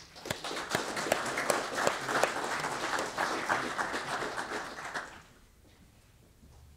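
Audience applauding for about five seconds, then the clapping dies away quickly.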